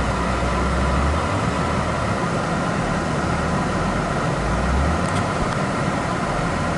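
Acura TL engine running steadily at idle after a misfire repair with new spark plugs and ignition coils, a low, even hum.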